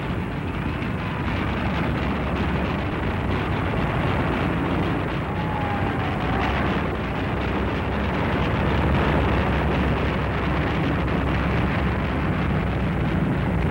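A single-engine propeller airplane's engine running steadily as the plane taxis, a continuous rumble with hiss and no breaks or changes.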